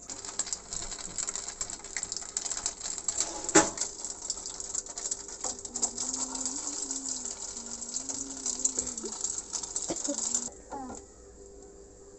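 Breaded milk-fry pieces deep-frying in hot oil: a dense sizzling crackle that stops abruptly about ten seconds in. A single sharp knock sounds a few seconds in.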